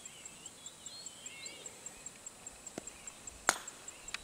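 A woodball mallet strikes a ball once with a single sharp knock about three and a half seconds in, preceded by a fainter tap.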